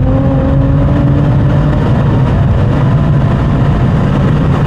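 Tuned big-turbo BMW M140i's straight-six engine heard from inside the cabin, pulling along at a steady cruise with a constant drone and road noise; its pitch creeps up a little in the first second or so, then holds.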